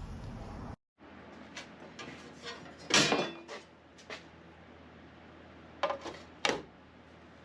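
A few sharp knocks and clatter, like hard objects being handled and set down. The loudest cluster comes about three seconds in, with two more short knocks near the end.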